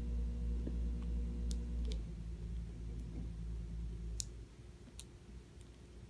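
Sparrow pecking at carpet: a few sharp, scattered beak clicks, about two, four and five seconds in, over a steady low hum that fades about four seconds in.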